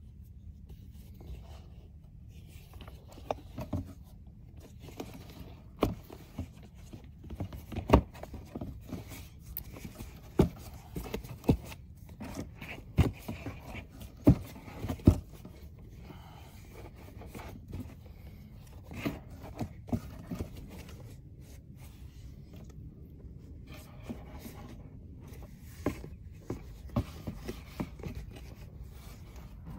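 Handling noises: irregular clicks, knocks and scraping as gear or objects are moved and set in place, busiest in the middle.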